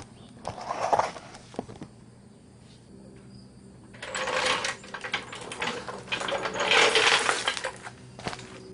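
Car jack being let down and worked out from under a Nissan 350Z: scattered metal clicks, then two longer spells of metallic rattling and scraping about four and six seconds in.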